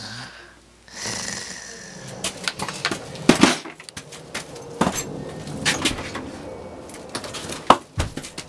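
A locked exterior door being tried: a series of separate sharp clicks and knocks as the handle is worked and the door pushed, without it opening.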